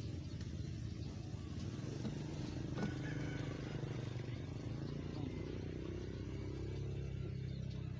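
A motor vehicle engine running steadily with a low hum, and a single click about three seconds in.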